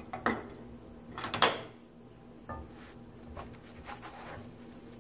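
A spatula knocking and scraping against a cast iron skillet: a few short clatters, the loudest about a second and a half in, over a faint steady hum.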